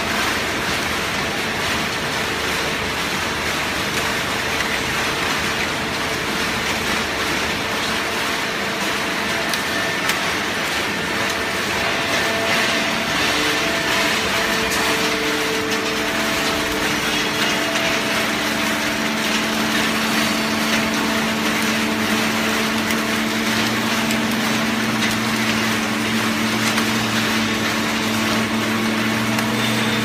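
Horizontal hydraulic baler and its feed conveyor running, a steady mechanical noise with a machine hum; further hum tones join about halfway through and a deeper hum near the end.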